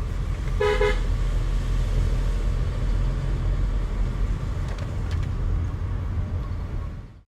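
A motor vehicle running with a steady low rumble, and a short car-horn toot about half a second in. The sound cuts off abruptly near the end.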